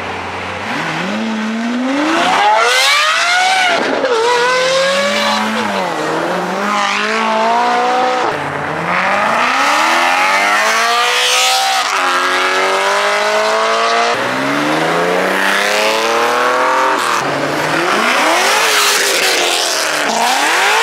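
Several high-performance cars accelerating hard past one after another, each engine revving up in a rising pitch and dropping back at gear changes, again and again.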